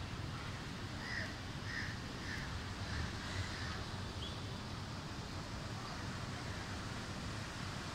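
Steady hiss of heavy rain and wind, with a crow cawing about five times in quick succession from about a second in, and one more higher call a little later.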